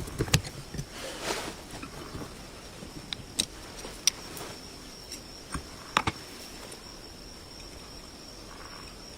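A few sharp clicks and taps, scattered and irregular, the loudest near the start and about four and six seconds in, over a steady faint high-pitched whine and hiss.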